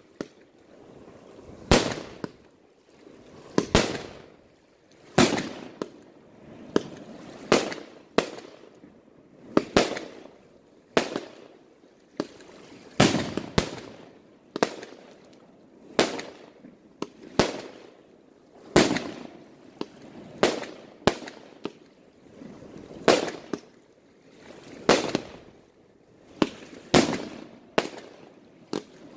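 Aerial fireworks firing shot after shot: sharp bangs about every second or so, each with a short echo fading after it.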